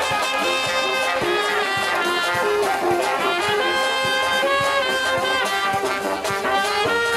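Brass band music, trumpets and trombones playing a melody over a steady drum beat.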